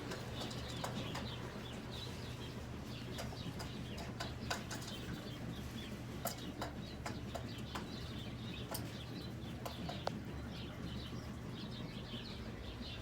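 Hen pecking at dry dog kibble: irregular sharp clicks and taps of the beak striking the pellets, with faint bird chirps and a steady low hum behind.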